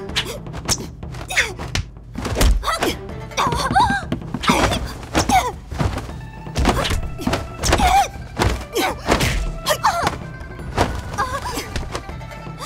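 Fight sound effects: a quick run of thuds and swishes from punches and blows, with short shouts of effort from the two fighters, over background music.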